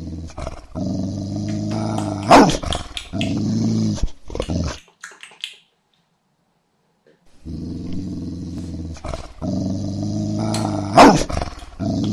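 A dog growling, rising to one loud bark, heard twice in identical form with about two seconds of dead silence between. It is an added sound effect rather than live sound.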